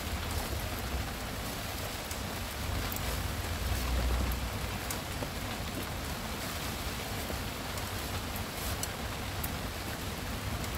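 Steady rain falling, with scattered drops ticking, and a low rumble underneath during the first few seconds.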